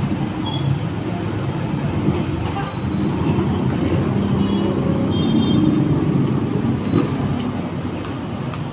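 Steady low rumbling vehicle noise with a few faint high squeaks, as of riding in a moving vehicle.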